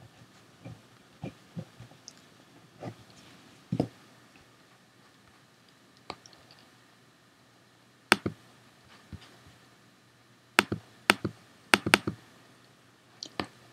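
Scattered computer clicks as one image is closed and the next is selected and opened: a few soft taps in the first few seconds, then half a dozen sharper clicks in the second half.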